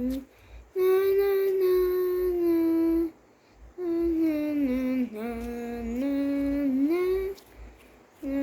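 A young voice singing long wordless notes in two phrases. The first holds one steady pitch for a couple of seconds; after a short pause about three seconds in, the second slides down and back up.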